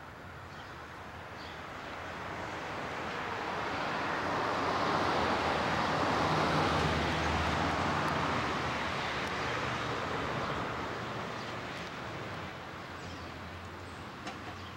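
A passing vehicle's broad rushing noise that builds over about six seconds, peaks, then fades away slowly, with a faint low hum under it at the loudest point.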